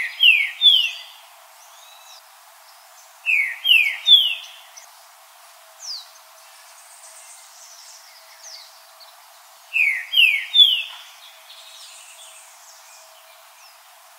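Green-winged saltator singing: three phrases of three quick, clear whistled notes, each note slurring down and each one pitched a step higher than the last. The phrases come near the start, about three and a half seconds in and about ten seconds in, with faint high calls of other birds between.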